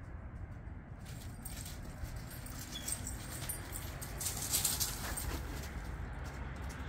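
Two dogs running and chasing each other over thin snow and frozen grass: a quick patter and scuffing of paws, busiest about four to five seconds in.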